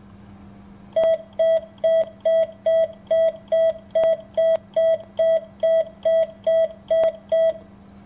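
Morse code (CW) sidetone sending the letter T, a single dah, sixteen times in a row at about two a second. Each dah is a short steady mid-pitched beep, and the gaps between them are even, which is the equal spacing between characters being demonstrated. A faint steady hum sits underneath.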